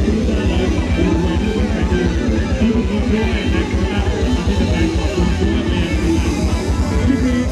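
Loud live-band music for ramwong dancing, with a heavy, steady beat.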